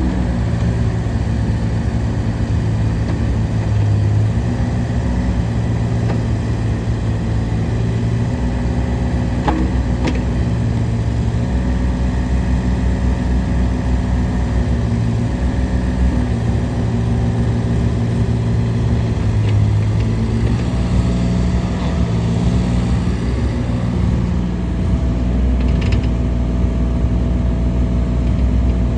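Bobcat E32i mini excavator's diesel engine running steadily, its note shifting in strength every few seconds, with a couple of faint clicks.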